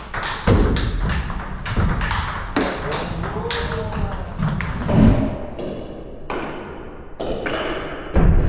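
Table tennis rally: the plastic ball clicking off rubber paddles and bouncing on the table in quick succession. The sound turns duller after about five seconds, with a few heavier knocks near the end.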